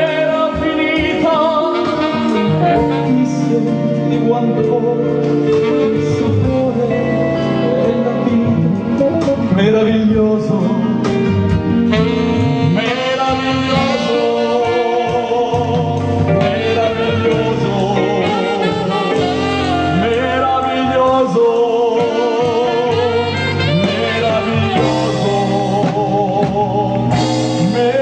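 Live band music: a man singing into a microphone with vibrato, backed by guitar and saxophone.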